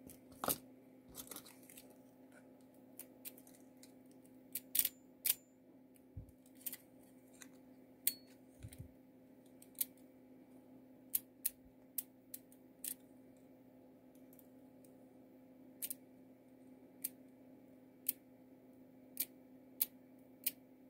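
Small, sharp metallic clicks at irregular intervals as a key on a keyring is worked into a cutaway lock cylinder and the metal parts are handled, with a faint steady hum underneath.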